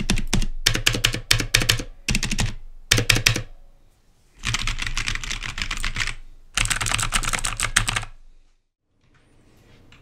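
Fast typing on two keyboards in turn, an Aula F2088 mechanical keyboard and another keyboard, played for a side-by-side comparison of their key sound. It comes as bursts of quick key clatter with short pauses, and stops about eight and a half seconds in.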